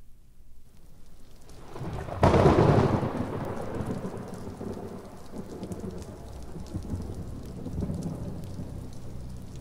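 Thunderstorm: a low rumble builds, a sharp thunderclap breaks about two seconds in, then the thunder rolls away under steady rain.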